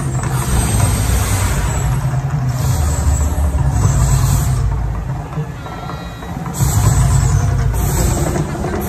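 Deep, continuous rumbling of the Mirage volcano eruption show, with surges of hissing whoosh as the gas fire jets flare and the fountains spray; the loudest surge comes about seven seconds in.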